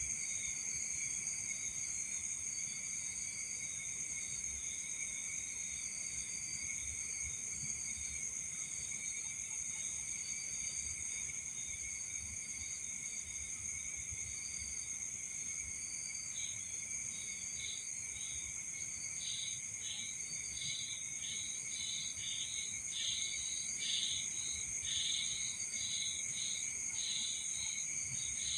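Night insect chorus: crickets and other insects trilling steadily in several high-pitched layers. About halfway through, another insect joins with rapid, repeated chirps that grow louder toward the end.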